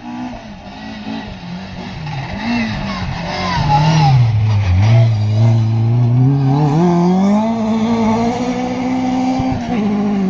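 Rally car engine at full speed, getting louder as it comes closer; about four seconds in the note drops sharply as the driver lifts off, then rises steadily under hard acceleration, with an upshift near the end.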